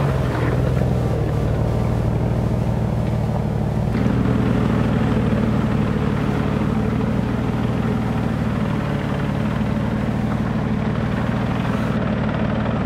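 Off-road Jeep Wrangler engine running steadily at low revs while crawling through a shallow creek, its note shifting about four seconds in.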